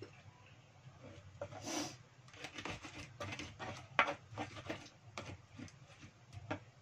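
Pestle grinding a wet chili spice paste in a cobek mortar, the paste already turning soft: irregular scrapes and knocks, the loudest about four seconds in.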